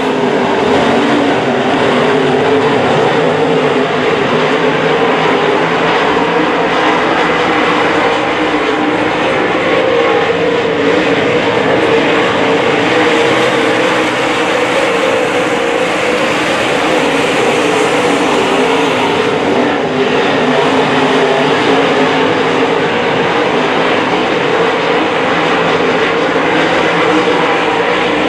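A pack of dirt-track modified race cars' V8 engines running together around the oval, a loud, steady drone of many engines.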